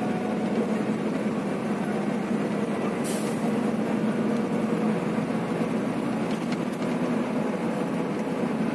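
Cabin noise inside a moving Scania coach: a steady engine and road drone with a low hum. A short hiss comes about three seconds in.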